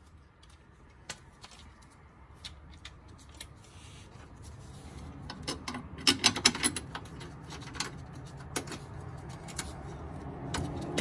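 Small metal clicks and clinks as bolts are fitted by hand into the front sway bar bracket under the car, with a quick run of clicks about six seconds in. A low rumble builds underneath from about four seconds in.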